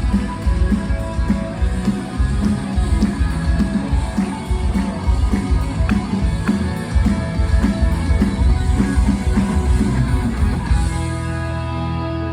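Music with a steady, driving beat; about eleven seconds in the beat stops and a chord is held, beginning to fade.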